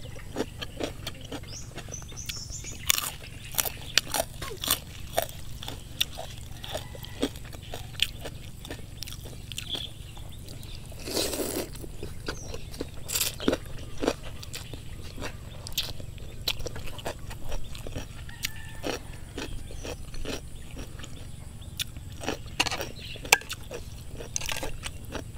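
Close-up eating sounds: chewing with many short crisp crunches and mouth clicks, and a single longer slurp of rice noodles about 11 seconds in.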